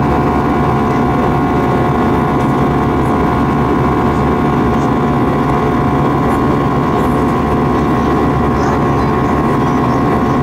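CFM56 turbofan engines of an Airbus A321 at climb power, heard from a cabin window seat over the wing: a loud, steady rumble with a steady high whine on top, unchanging throughout.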